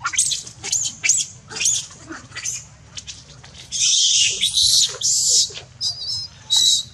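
Young long-tailed macaques squealing and screaming. First comes a run of short, high squeals, then a longer harsh scream starting about four seconds in, and near the end a few thin, wavering, whistle-like cries.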